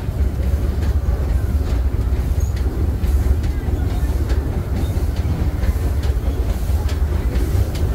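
Disneyland Railroad steam train running along the track, heard from aboard: a steady low rumble of wheels on rails, with a few faint clicks now and then.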